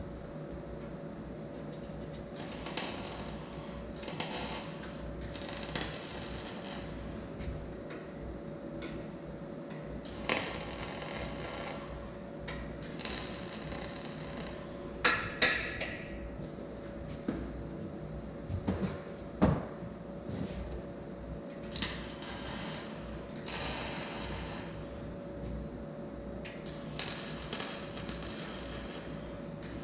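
Electric arc welding on a steel tube frame: a series of short welds, each a crackling hiss lasting a second or two, with pauses between. A few sharp knocks come about halfway through, over a steady faint hum.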